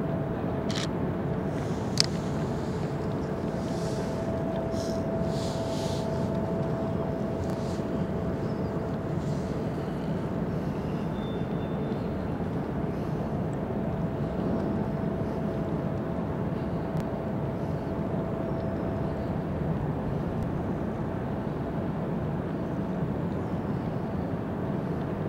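Steady low rumble and hum of the Fred. Olsen cruise ship Borealis's engines and on-board machinery as she moves slowly along the quay, with a faint steady whine over the rumble. A single sharp click about two seconds in.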